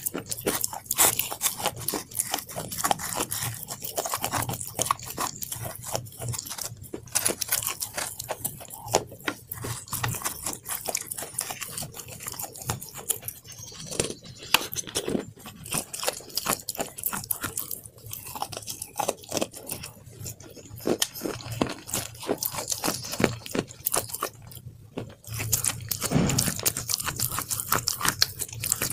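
Crunching and chewing from bites of a crisp chocolate-dipped snack held right at the mouth: a dense run of sharp crackles throughout, with chewing sounds between bites.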